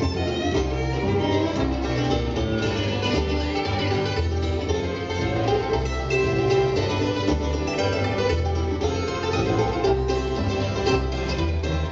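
Bluegrass band playing an instrumental break: picked banjo and acoustic guitar over a steady bass line, with some fiddle.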